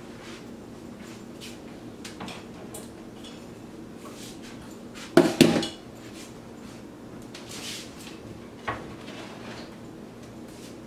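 Pots and utensils clattering at a kitchen counter: scattered light clinks, two or three loud metal clanks about five seconds in, and a single sharp click near the end.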